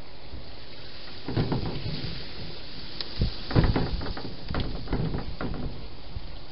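A cluster of irregular knocks and rustles, about a second in through to near the end, the loudest a little past the middle, over a steady hiss.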